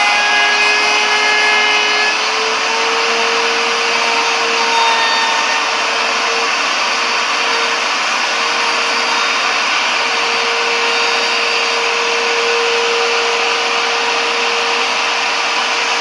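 Electric wood router running at speed with a steady high whine, its bearing-guided bit cutting a profile along the wood with a dense, rasping cutting noise. The pitch sags slightly just before two seconds in as the bit takes load, then holds steady.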